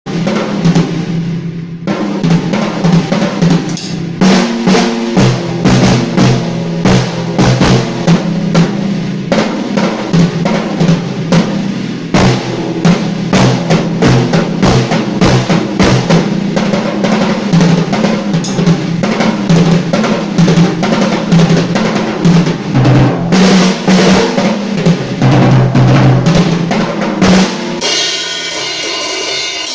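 Tama Stagestar acoustic drum kit played in fast, dense strokes on snare, toms and bass drum. Near the end the strokes stop and a cymbal is left ringing.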